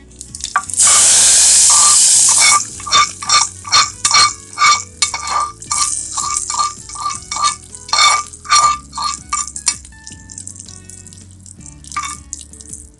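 Hot ghee-and-oil tempering (tadka) hitting cooked dal: a loud sizzle for about two seconds as it is poured in, then a run of sharp spluttering pops that die away.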